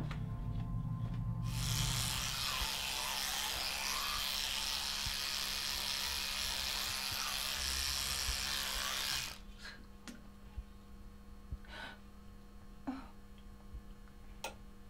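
Toothbrush brushing teeth: a steady scrubbing hiss that stops abruptly about nine seconds in. A low steady hum and a few faint clicks follow.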